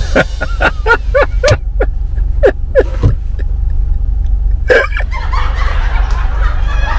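Laughter in short pitched pulses for about three seconds, after a pause turning into breathier laughing near the end, over a steady low rumble.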